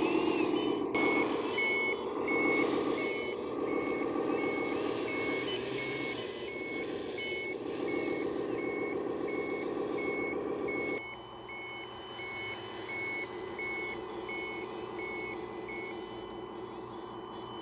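Heavy-equipment reversing alarm beeping steadily, about three beeps every two seconds, over a running engine. The engine sound drops to a lower level about two-thirds of the way through, and the beeping stops shortly before the end.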